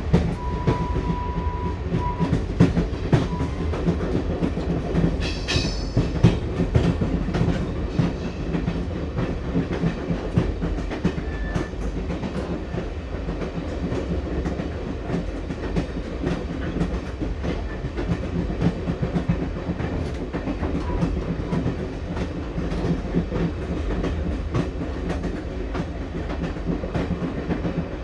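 Passenger train wheels clacking over the rail joints, a rapid uneven run of clicks over a constant low rumble, heard from inside the carriage. A short steady tone sounds in the first two seconds, and a brief high-pitched sound comes about five seconds in.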